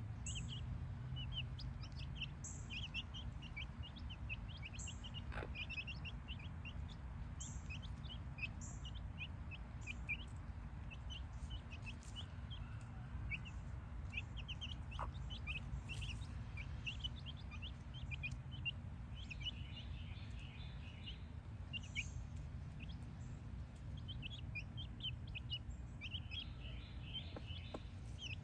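Brahma chicks peeping continually, many short high chirps overlapping one another, over a low steady rumble.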